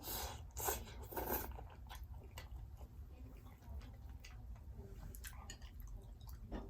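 Close-up eating sounds: three loud crunchy bites into fried seafood in the first second and a half, then chewing with scattered small wet clicks.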